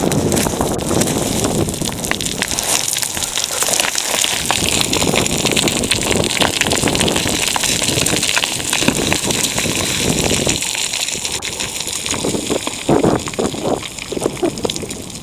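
Wind buffeting the microphone: a steady rushing with many small crackles, gusting harder near the end.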